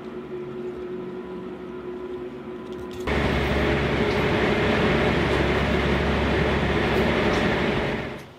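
Passenger ferry's engines and machinery: a steady hum with a faint held tone, then, from about three seconds in, a much louder low rumble that fades out near the end.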